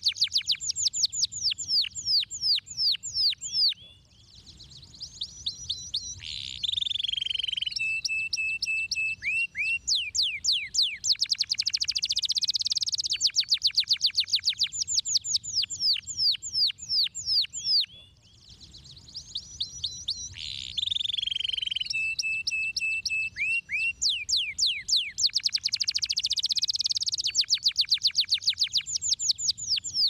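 Domestic canary singing: long, fast rolling trills of rapidly repeated sweeping notes, broken by short held whistled notes. The same sequence of phrases comes round twice, about fourteen seconds apart.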